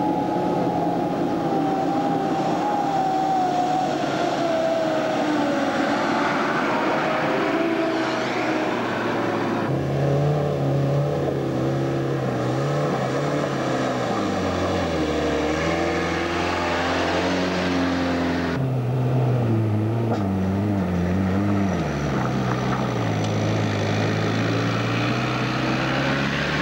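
Off-road 4x4 engines running and revving as the vehicles drive a muddy field track. The engine note falls slowly over the first few seconds, and the sound changes abruptly twice, about 10 and 19 seconds in, where the footage cuts between vehicles.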